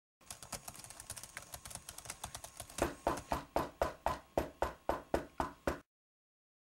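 A rapid, even series of sharp knocks, about four a second, faint at first and louder from about three seconds in, then stopping abruptly near the end.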